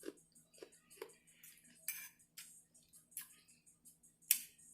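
Eating utensil clinking and scraping against a dish of food in a string of scattered light clicks, the loudest near the end.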